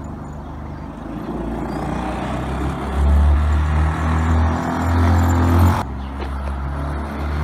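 Small single-cylinder car engine running at a steady pitch, growing louder over the first few seconds. It drops suddenly about six seconds in to a quieter run of the same engine note.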